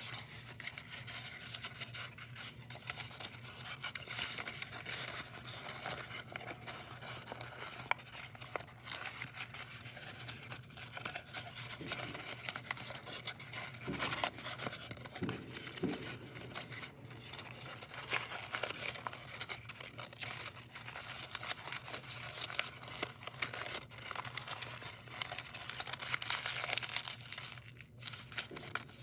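Sheets of origami paper rustling and crinkling as hands fold, pinch and press the creases of a paper model, with a steady run of small crisp crackles. The rustling is brightest and busiest through the first half or so.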